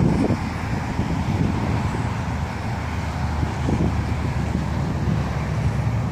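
Wind buffeting the microphone with a low, gusty rumble, over a steady hum of road traffic.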